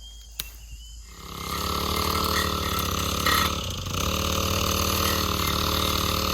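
A small engine comes in about a second in and runs steadily, with its pitch dipping briefly partway through.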